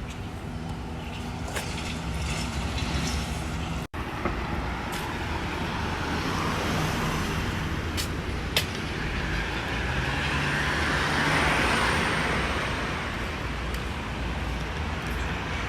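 Road traffic noise: vehicle engines and tyres, swelling around eleven seconds in as traffic passes. A brief gap in the sound comes about four seconds in.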